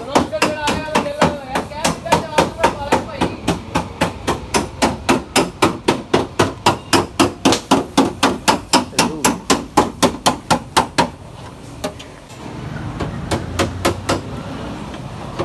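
Hammer beating dents out of a car's sheet-metal body, in quick regular blows about four a second. The blows stop for about three seconds near the end, then start again.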